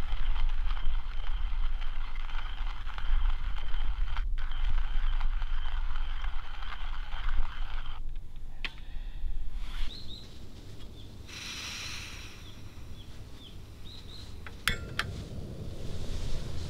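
Hand-cranked coffee grinder grinding beans: a steady gritty rasp for about eight seconds, then it stops, leaving a few light clicks and birds chirping. Near the end, a click and the steady hiss of a camping gas stove burner lighting.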